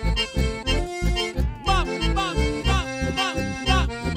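A band playing live: an instrumental passage with a lead melody of short sliding notes over a steady, pulsing bass beat.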